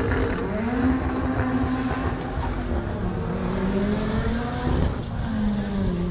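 Car engine at full throttle accelerating down a drag strip, its pitch climbing in each gear and dropping at the shifts, about two and a half and about five seconds in.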